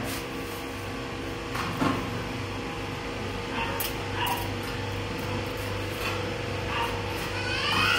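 Dogs whining and yipping a few times, the loudest call near the end, over a steady low hum, with a few sharp knocks.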